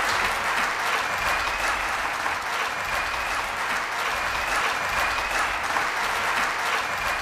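Audience applause, steady and sustained.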